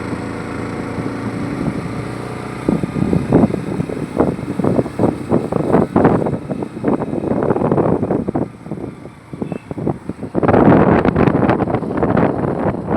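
A vehicle's engine running steadily, then, from about three seconds in, wind buffeting the microphone in irregular gusts, heaviest near the end.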